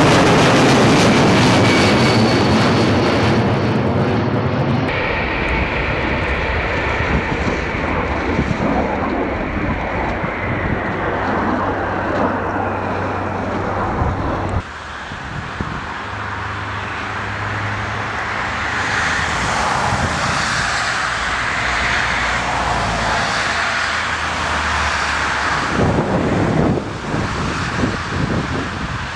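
Jet engines of large four- and twin-engined aircraft passing low and landing, heard across several clips cut one after another. There is loud engine noise with a high whine falling slightly in pitch in the first few seconds. The sound changes abruptly about five seconds in and again near the middle, where it becomes quieter.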